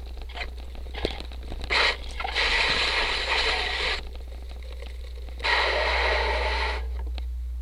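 Cyclocross bike rolling over a rough dirt and leaf-covered trail: tyre noise and rattles from the bike, with two louder stretches of scraping hiss about two and a half and five and a half seconds in, over a steady low hum.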